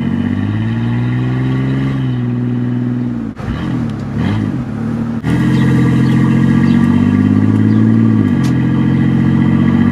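Chevy S10's V6 running through a side-exit exhaust, heard inside the cab while driving. The engine note climbs and drops back, eases off in an uneven lull around four seconds in, then comes back louder at about five seconds, holds, and drops in pitch again near the end.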